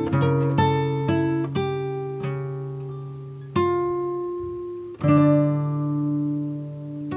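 Background music of plucked string notes, each struck sharply and ringing away, in a slow melody; a louder note lands about five seconds in.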